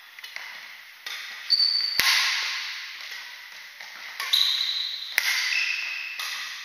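Badminton rally: rackets striking the shuttlecock in about six sharp cracks, the loudest about two seconds in, each ringing on in a large hall. Between the hits come short high squeaks of court shoes on the wooden floor.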